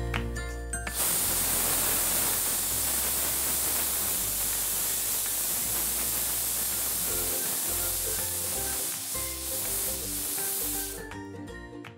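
Stovetop pressure cooker's whistle going off: steam hisses loudly out of the weight valve for about ten seconds, starting suddenly about a second in and stopping near the end. It is one of the counted whistles that time the mutton cooking under pressure.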